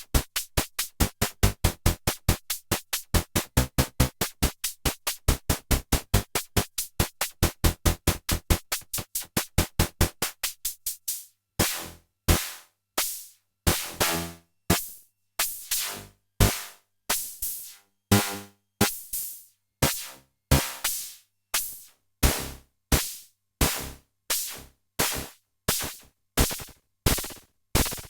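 EDP Wasp monophonic analog synthesizer playing short, bright, quickly decaying notes in a fast run of about five a second. About eleven seconds in, the run thins to a slower, uneven pattern of about two notes a second with gaps between them.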